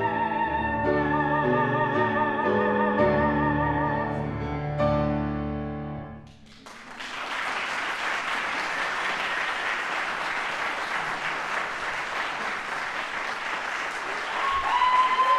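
A man and a woman singing the held closing notes of a musical-theatre love duet with accompaniment, the music ending about six seconds in. Audience applause follows, with cheering rising over it near the end.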